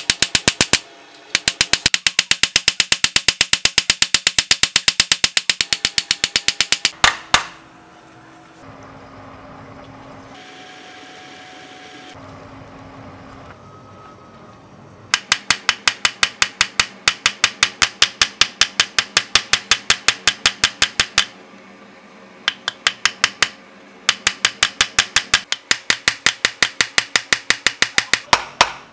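A ball-peen hammer strikes a steel drill bit held in tongs on a small steel anvil block, forging it flat. The blows are fast and sharp, metal on metal, several a second in long runs. They stop for a quieter stretch of about eight seconds in the middle.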